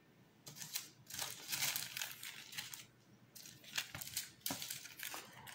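Small clear plastic bags of diamond painting drills crinkling and rustling as they are handled and set down, in short, uneven spells with brief pauses between.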